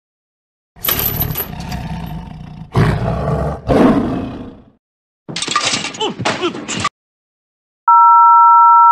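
A cartoon monster's harsh, voiced roar in two long stretches, then a shorter stretch of yelling with pitch that bends up and down. Near the end comes a loud, steady electronic beep of two tones sounding together, lasting about a second.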